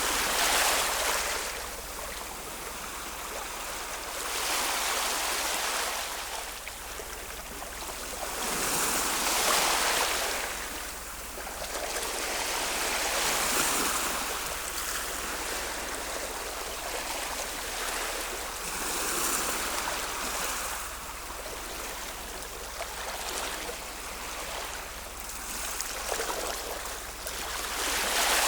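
Ocean waves breaking and washing in, the surf swelling and falling away about every four to six seconds, with a steady hiss of water between.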